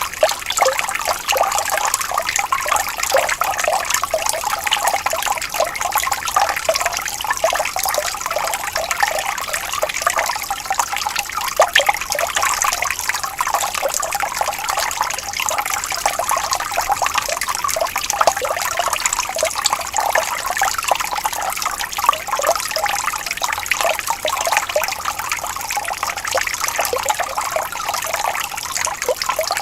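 Water flowing and trickling steadily, with a constant bubbling and gurgling.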